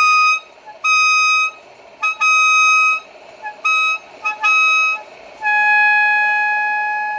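Air Zound air-powered bicycle horn sounding loudly in a string of short, high blasts, then one long, lower-pitched blast that fades as its air charge runs low.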